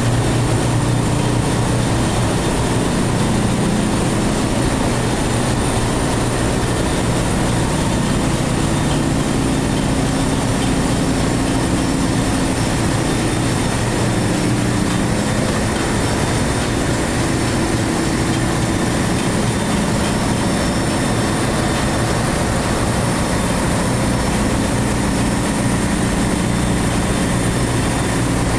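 Steady, loud machinery noise of a tanker ship's engine room, from the running diesel generator sets and the MAN B&W two-stroke main engine. A strong low hum stays unchanged throughout, with faint thin high whines above it.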